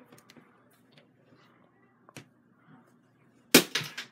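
A balloon bursting with one loud, sharp bang about three and a half seconds in, popped by a nail fixed to a magnetic dart; a small click comes about a second earlier.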